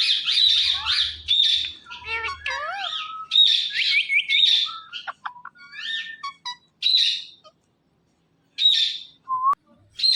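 Indian ringneck parrot chattering in a quick series of short chirps and squawks with fast rising and falling pitch glides. It breaks off for about a second near the end, then calls again.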